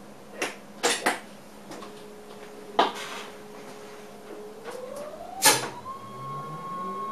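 Several sharp clicks and knocks in an electric train's driver's cab, then the rising electronic whine of the traction motors as the train gathers speed: one tone glides up and settles into a steady whine about a second and a half in from its start, and a second, lower tone begins to climb near the end.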